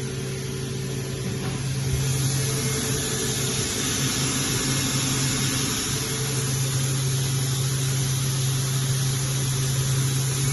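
Spindle of a Hurco VMX42U vertical machining center running at 8,000 RPM: a steady hum over a constant hiss.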